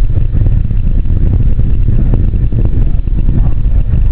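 Deep, steady rumble from the Ares I-X rocket's solid rocket booster firing in powered flight, with faint crackle above the low roar.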